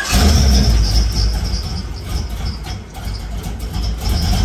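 LS1 V8 engine catching and running, at its loudest for the first second and a half and then easing back a little toward an idle.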